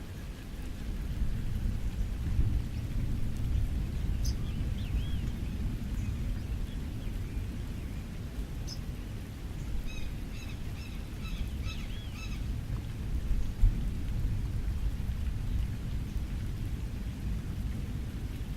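Rain on a beach with a steady low rumble underneath, and birds calling over it: a few chirps about four seconds in, then a quick series of short repeated calls around the middle.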